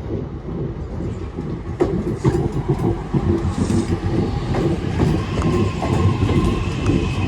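Two coupled Class 323 electric multiple units arriving at a platform, wheels clattering over the rail joints with a loud rumble. A steady high whine comes in about five seconds in.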